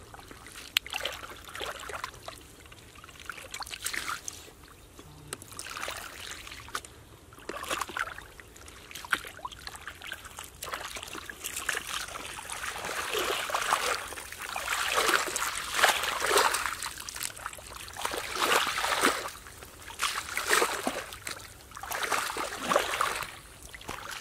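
Shallow muddy water splashing and sloshing as hands churn the mud and booted feet tread through it, in irregular bursts that grow louder and more frequent from about halfway through.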